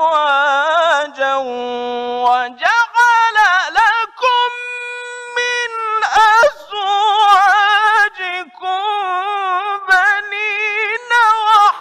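A male Quran reciter chanting in the melodic mujawwad style: drawn-out melismatic phrases with wavering ornamented notes, and one long steady high note held for over a second near the middle.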